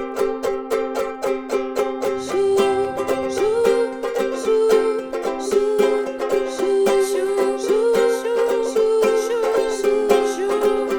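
Ukuleles strumming a steady rhythm on a held chord, with a melody line joining about two seconds in: the instrumental intro of the song.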